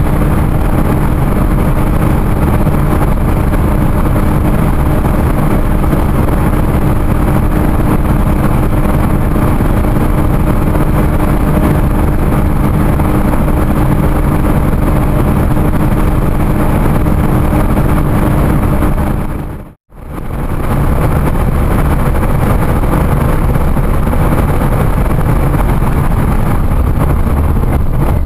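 Jaguar F-Type S's supercharged 3.0-litre V6 holding about 6,000 rpm in seventh gear at around 285 km/h, a steady engine drone under loud wind and tyre roar inside the cabin. The sound cuts out briefly about two-thirds of the way in, then the roar goes on as the car brakes hard from top speed.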